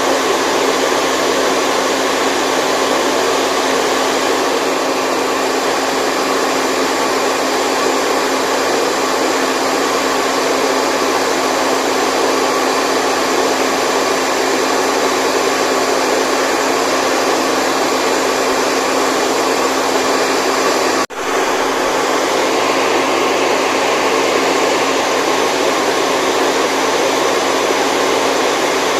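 Steady white noise played as a baby sleep aid, an even whooshing rush with a faint steady hum running through it. It cuts out for a split second about three-quarters of the way through, then carries on unchanged.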